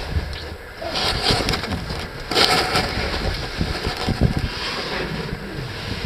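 A caver crawling through a tight rock passage: the caving suit and gear scrape, rub and knock against the rock in irregular bursts, the loudest scrape about two and a half seconds in, over a low rumble on the microphone.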